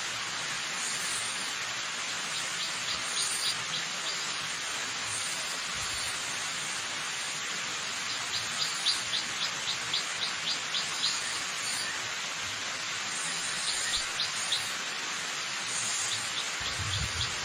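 Steady rush of falling water from a waterfall, with a bird calling over it in four runs of short high chirps, about four a second, the longest run lasting about three seconds.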